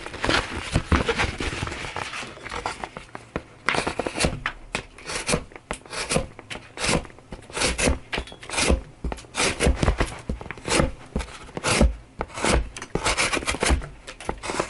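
An S90V steel pocket knife blade slicing through cardboard over and over, a short scraping rasp with each stroke, a little over one cut a second.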